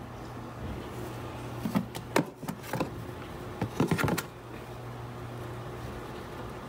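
Toco toucan making a few short clacking, rattling sounds with its bill, in two clusters about two and four seconds in, over a steady low hum.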